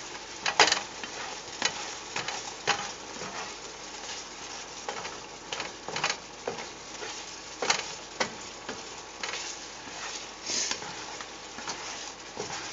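Asparagus sizzling in a pan of garlic sauce as it is stirred, with irregular clacks and scrapes of the utensil against the pan over a steady sizzle.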